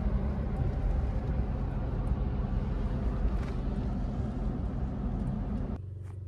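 Steady engine and road rumble inside a moving vehicle's cabin. Near the end it cuts abruptly to a quieter steady hum.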